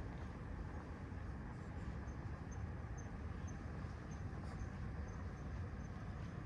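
Steady low rumble of a quiet city street at night, with a faint, high-pitched chirp that starts about two seconds in and repeats evenly about twice a second.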